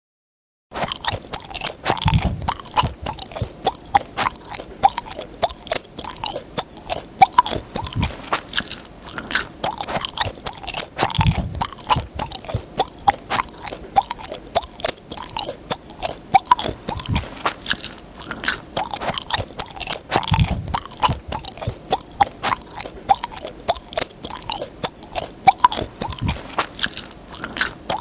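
Someone chewing gum: a fast, continuous run of small mouth clicks and smacks, with a soft low thump every few seconds. It starts just under a second in.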